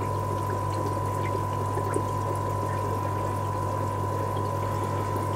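Aquarium filtration running: steady trickling, splashing water over a steady low hum and a thin high whine.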